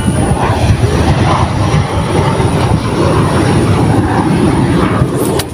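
A loud, steady low rumbling noise.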